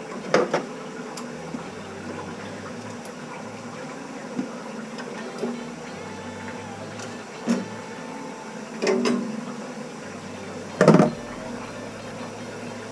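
Steady low hum in a small room, broken by several short, sharp knocks and taps as the copper pipes around a water heater are handled.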